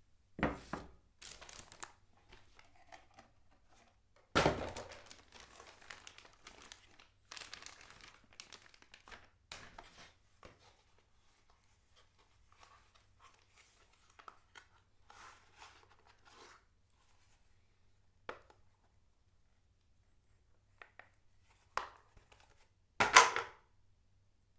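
Packaging being handled during an unboxing: irregular crinkling and tearing of wrapping, with louder knocks about half a second in, about four seconds in, and a loudest one near the end.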